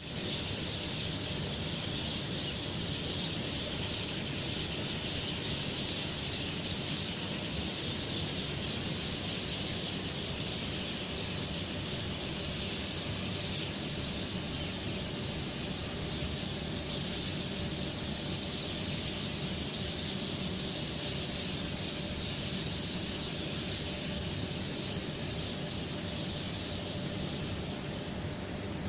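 Steady outdoor ambience: an even, high hiss that holds the same level throughout, with no distinct events.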